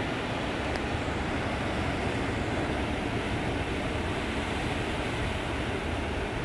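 Steady roar of surf breaking against a rock and concrete breakwater, with a heavy low rumble.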